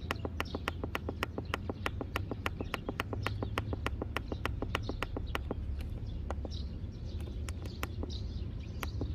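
Quick, even clicks, about four or five a second, from repeated presses of the down-arrow button on a Gardena Sileno City robot mower's keypad while scrolling a menu list. After about five and a half seconds they thin out to a few single clicks. Birds chirp in the second half.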